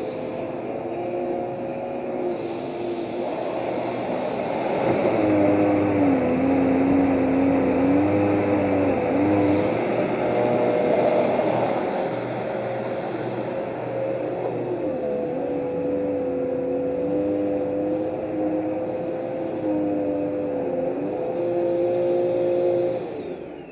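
Vacuum cleaner motor running with a steady whine, its lower hum shifting up and down in pitch and loudness as it works. Near the end it is switched off, and the whine falls away as the motor spins down.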